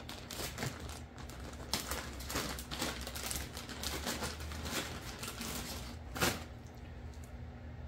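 Clear plastic zipper bag crinkling and rustling in gloved hands as it is opened and the parts inside are handled: a run of irregular crackles, with one sharper, louder crackle about six seconds in.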